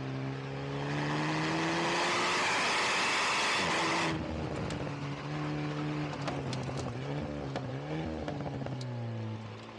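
Alpine A110 R's turbocharged four-cylinder engine and exhaust accelerating hard, the note rising and growing louder for about four seconds, then cutting off sharply as the throttle closes. Pops and crackles come from the exhaust on the overrun as the revs rise and fall, and the note settles to a steadier tone near the end.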